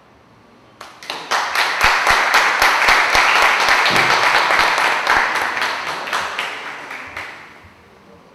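Small audience applauding: the clapping starts about a second in, swells quickly, then thins and fades out near the end.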